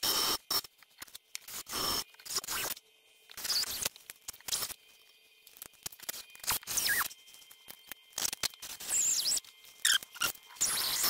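Short, irregular bursts of scraping and squealing on metal, with a few brief squeals that slide up and down in pitch.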